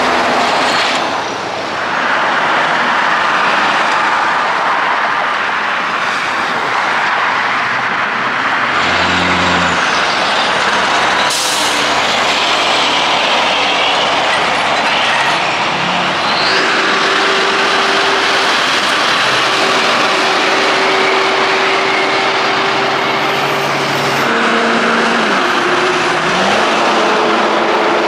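Heavy trucks and other vehicles passing close by on a highway: continuous diesel engine and tyre noise. A short sharp air-brake hiss about 11 seconds in.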